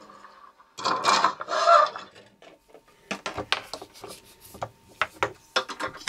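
Handling noise from the repaired coax cable and bench: a rubbing scrape lasting about a second, then a scatter of light clicks and taps as the cable is picked up and moved about.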